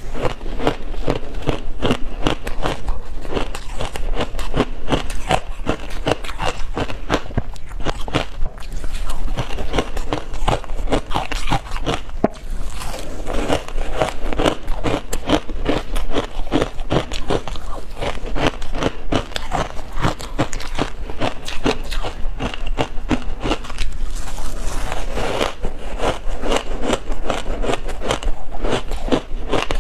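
Dense reshaped ice dusted with milk powder being bitten and chewed close to the microphone: a steady stream of crackling crunches as the ice breaks between the teeth.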